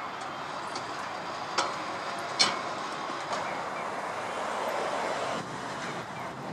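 A Tosa Electric Railway streetcar rolling slowly over the tracks, its wheels giving two sharp clanks over rail joints or points in quick succession, then a fainter one, over a steady running noise that swells and cuts off near the end.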